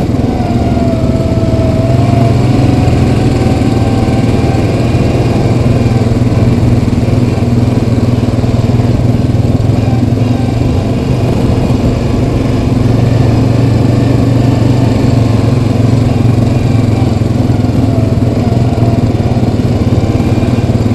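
Single-cylinder four-stroke ATV engine running steadily at trail speed while riding a dirt trail, with a faint high whine over it for the first few seconds.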